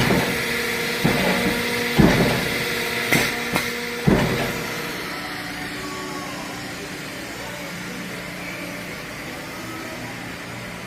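75-ton CNC traveling head clicker press cutting leather, with a series of sharp cutting strokes about once a second over the first four seconds. After that only the press's steady motor hum remains.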